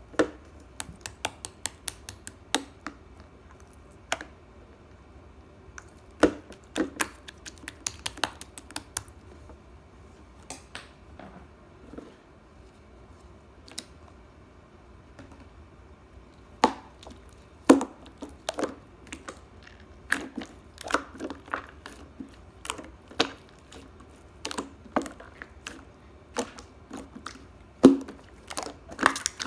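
Irregular sharp clicks and taps, coming in quick runs with pauses between them.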